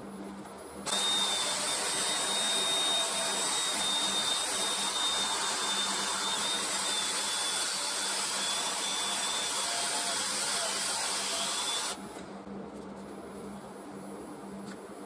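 Cordless drill running at a steady speed with a soft buffing pad pressed against the inside of a wooden bowl, a steady whine over the whirr. It starts about a second in and stops abruptly about eleven seconds later.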